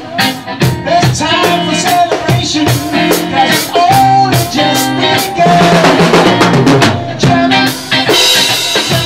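Rock band jamming: a drum kit keeps the beat under sustained guitar and bass notes.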